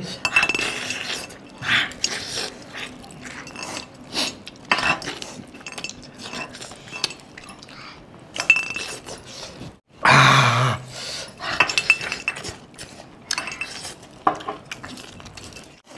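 Eating by hand: chicken pieces being pulled apart and chewed, with scattered clicks and clinks against a steel bowl. A short vocal sound from the eater comes about ten seconds in and is the loudest moment.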